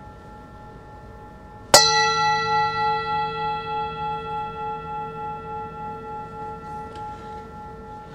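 A bell struck once about two seconds in, ringing on in several clear tones that fade slowly with a wavering level. The fading ring of an earlier strike is already heard before it.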